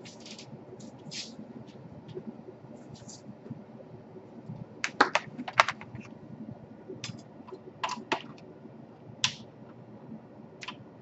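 Hard objects being handled and moved about by hand: scattered sharp clicks and light clacks, with a burst of louder clacks about five seconds in.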